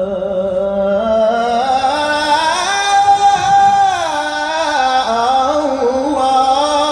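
Man's Quran recitation voice drawing out one long ornamented melisma in maqam Nahawand, climbing to a high held note about halfway through and sliding back down near the end.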